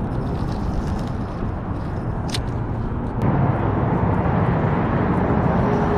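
Steady rumble of road traffic crossing the bridge, with two sharp clicks a little over two and three seconds in, after which the rumble grows louder.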